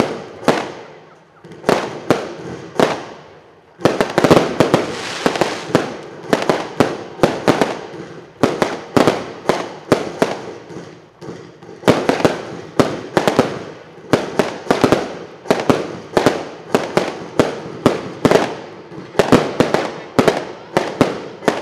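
Consumer firework batteries firing a rapid string of shots, roughly two to three bangs a second, as shells launch and burst overhead. A denser barrage of reports comes about four seconds in and again around twelve seconds.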